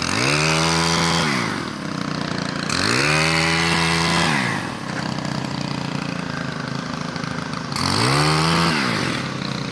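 Gas-engine pole saw revving up to full speed three times, each rev held about a second and a half before dropping back. Between the revs it idles steadily.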